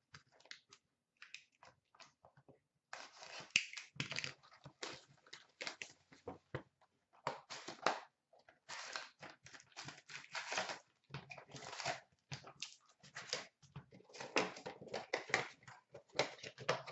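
Plastic shrink wrap and a cardboard box of trading card packs being torn open and the foil packs handled. Soft clicks at first, then from about three seconds in a dense run of crinkling, tearing and rustling.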